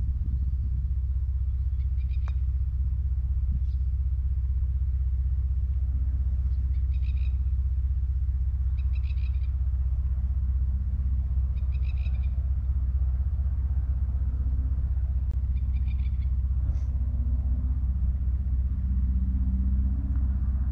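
Steady low wind rumble on the microphone. A bird calls about five times, each call a short burst of several notes, and a sharp tick comes about two seconds in.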